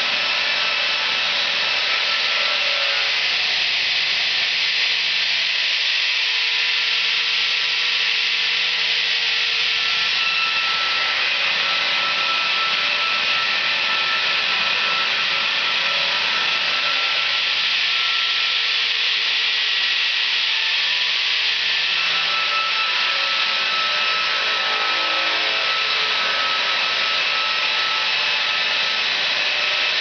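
Horizontal chainsaw mill ripping a log lengthwise: the saw chain cuts steadily through the wood with a continuous high, hissing rasp. The lower part of the sound eases from a few seconds in until past the middle, then returns.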